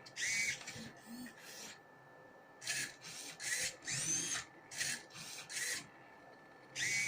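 Hobby servo motors in a Rubik's Cube robot's grippers whining in short bursts, about eight in all, as they twist the cube. Several bursts glide up and down in pitch.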